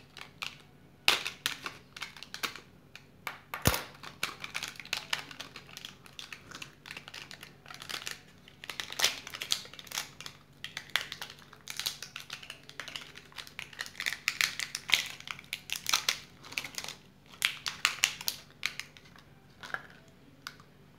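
Plastic lollipop wrapper crinkling and rustling as it is cut with small scissors and pulled off, in an irregular run of clicks and rustles.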